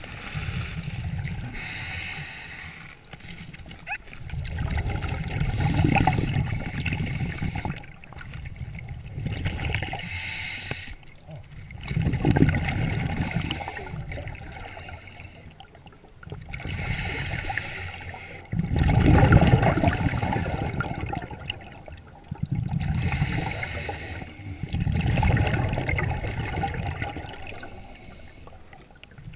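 Scuba diver breathing through a regulator underwater: a hiss on each inhale and a gurgling rush of exhaust bubbles on each exhale, repeating every few seconds.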